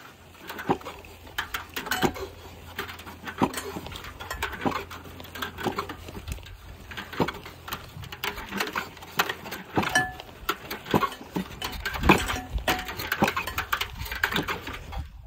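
Spool of barbed wire rattling and knocking on its pipe axle in a wooden frame on a hand dolly as the dolly is pushed over rough grass, paying out wire: irregular clacks several times a second over a low rumble.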